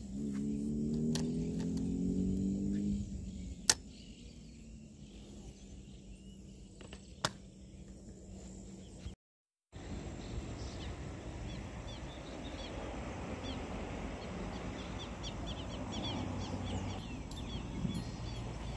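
A spinning reel cranked in for about three seconds, a whirring whine that rises in pitch, followed by two sharp clicks. Later, many short bird chirps sound over a steady outdoor hiss.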